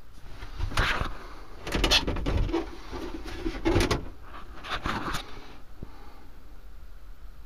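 A series of knocks and clatters from moulded plastic washroom fittings being handled, coming in several clusters from about half a second in to about five seconds in, over a low steady background hum.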